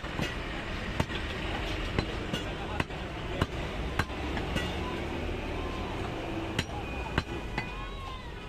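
Butcher's cleaver chopping goat meat on a wooden log chopping block: sharp knocks roughly once a second, with a short pause midway, over a steady din of street noise and voices.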